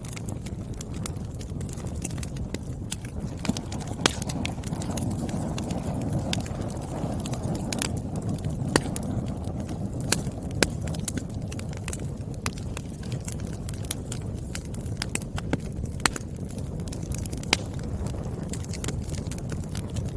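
Wood fire burning with a low steady rumble and frequent irregular crackles and sharp pops of the firewood.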